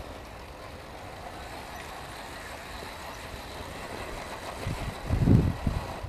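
1:10 scale motor-on-axle RC rock crawler's electric motors whining faintly as it climbs a dirt slope, with a cluster of low thuds about five seconds in.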